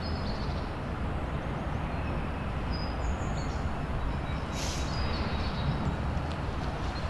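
Outdoor street ambience: a steady low rumble of distant traffic, with small birds chirping now and then and a brief hiss about halfway through.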